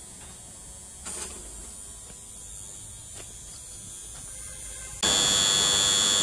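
A steady electric buzz with a high, constant whine starts suddenly about five seconds in and is the loudest thing heard: the electric crane hoist running while it lowers the suspended dust collector. Before it there is only a faint background hum with two light knocks.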